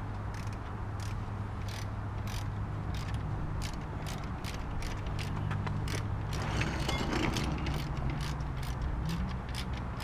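Ratchet wrench clicking in quick, even strokes, about three clicks a second, as it works a bolt out of a brake caliper. A steady low hum runs underneath.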